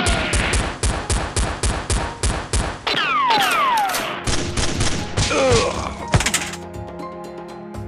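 Rapid gunfire sound effects, about four or five shots a second, with falling whistle sounds mixed in. A loud bang comes about six seconds in, after which background music takes over.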